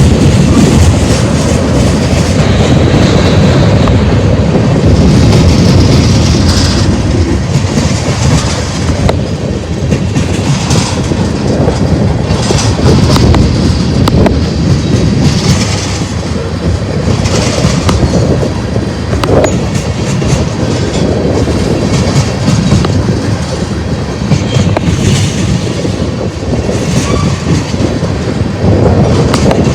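Freight cars of a manifest train rolling past: a steady, loud rumble with wheels clacking over the rail joints.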